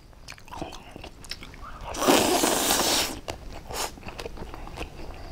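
Mouth sounds of eating a spicy oyster salad with leafy greens: crunchy chewing and small clicks, with one loud slurp about two seconds in that lasts about a second as the greens are drawn in.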